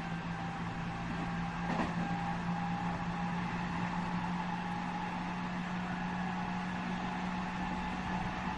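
Running sound inside a JR West 207 series 1000-subseries electric motor car (Toshiba GTO inverter): a steady low rumble with an even hum and whine at a constant speed, and a single brief knock about two seconds in.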